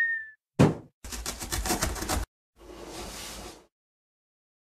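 Cartoon sound effects of a cardboard box landing with a sharp thump, then about a second of fast rattling, then a softer rushing noise that fades out.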